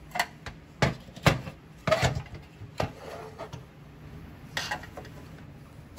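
Flat-blade screwdriver prying and scraping against a 1970s Tonka pickup's pressed-steel toy body: a run of irregular sharp metallic clinks and scrapes, thickest in the first three seconds, with one more a little before five seconds in.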